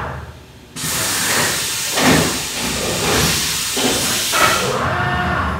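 Compressed air blasting inside the enclosure of a Haas UMC-750 five-axis CNC mill: a loud, steady hiss that starts suddenly about a second in and stops shortly before the end, with lower mechanical machine sounds underneath.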